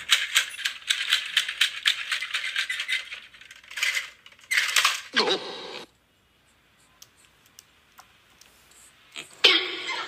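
Rapid, dense clicking rattle for about three and a half seconds, followed by two short rattling bursts and a brief falling sound, then near quiet until another sound starts just before the end.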